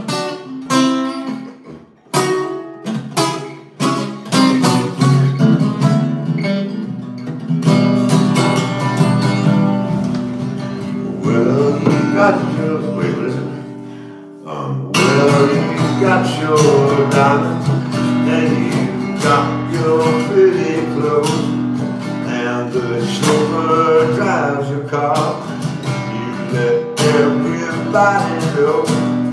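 Acoustic guitar being strummed in chords, with a brief break in the playing about halfway through before it picks up again.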